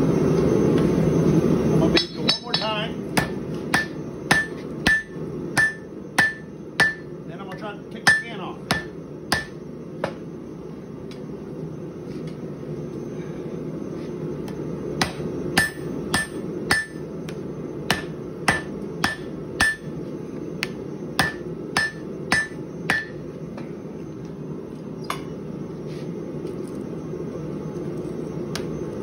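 Hand hammer blows on a glowing canister Damascus billet held in tongs on the anvil, about two a second with a ringing note on each, in two runs with a pause of a few seconds between and a few scattered blows near the end: the ball-bearing canister is being forged solid by hand. It opens with a loud steady roar that stops about two seconds in.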